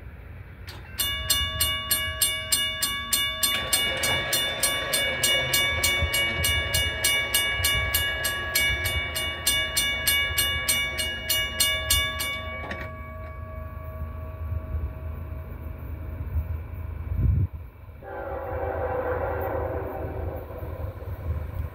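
Railroad grade-crossing bell ringing in rapid, even strokes for about twelve seconds, then stopping. A few seconds later the horn of an approaching CSX locomotive sounds in the distance, a held chord.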